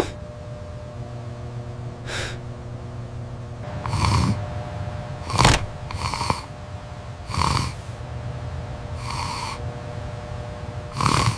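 Snoring: a run of about six breathy snores, each under a second long and one to two seconds apart, over a low steady hum.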